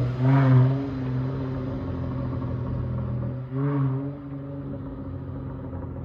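Dodge Charger SXT's V6 running through Flowmaster Outlaw mufflers at low speed: a steady low exhaust note, swelling briefly twice, about half a second in and again about three and a half seconds in, as the throttle is touched.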